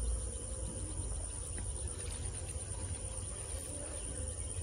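Steady high-pitched insect drone, like crickets, running without a break, over a low rumble.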